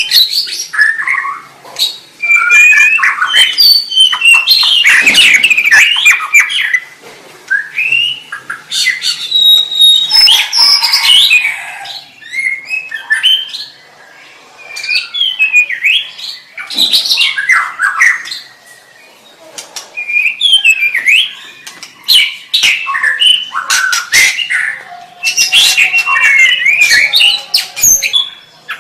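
White-rumped shama (murai batu) singing loudly: bouts of varied whistled phrases with quick rising and falling notes and some harsh notes mixed in, broken by a few short pauses.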